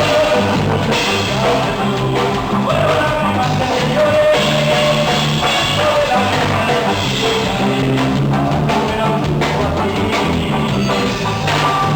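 Duranguense band music: a steady drum beat under a bass line that moves between held low notes, with a melody line above.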